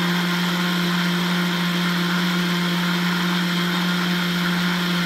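Countertop blender running steadily, blending a protein shake: an unchanging motor hum and whir.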